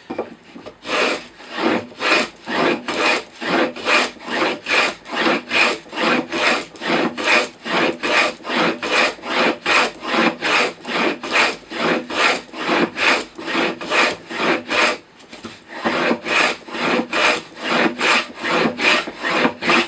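Stanley No. 48 tongue-and-groove hand plane cutting a tongue along a board edge: its twin irons shave the wood in quick, even strokes, about two a second, with a short pause about three-quarters through. The plane has just been greased, so it cuts easily.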